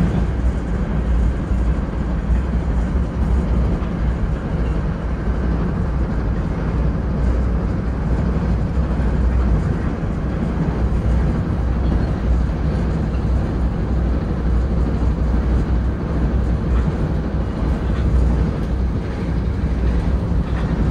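Interior of an NJ Transit Bombardier Comet IIM passenger coach rolling along the track: a steady low rumble of wheels on rail and car-body noise.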